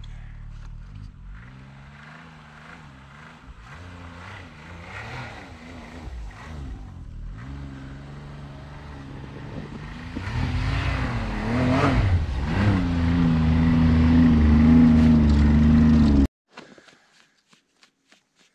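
Snowmobile engine approaching, its pitch rising and falling with the throttle and growing steadily louder as it nears. It cuts off suddenly about 16 seconds in, leaving only faint rustling.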